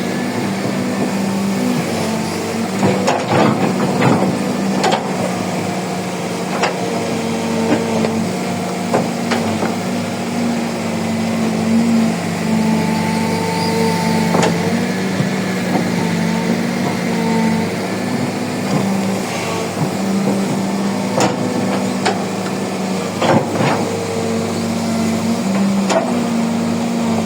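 Kobelco 135 excavator's diesel engine running steadily while it works, with repeated sharp metal clanks and knocks, clustered a few seconds in and again near the end.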